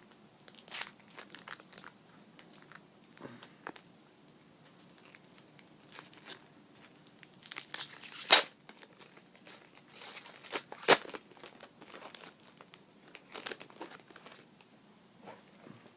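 A trading-card pack wrapper being torn open and crinkled: scattered crackling with a few sharp, louder rips, the loudest about halfway through and again a few seconds later.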